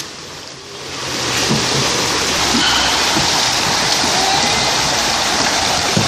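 Steady rushing of a shallow, rocky stream, water running over and around stones. It drops away suddenly at the start and swells back to full strength over the first second or two.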